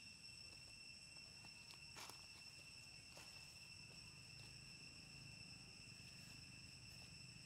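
Faint, steady high-pitched insect drone with a low rumble beneath it, and a single click about two seconds in.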